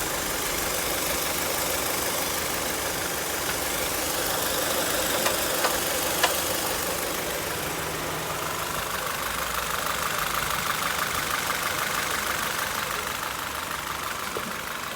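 2015 Honda Fit engine idling with the A/C running on a newly fitted compressor after a regas, a steady hum. Two short clicks come about five and six seconds in, and a wavering higher whine joins a little past halfway.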